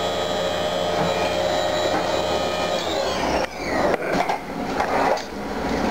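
Haas CNC mill spindle running with a steady whine while coolant sprays, then winding down about three seconds in, its pitch falling. Irregular knocks and clatter follow.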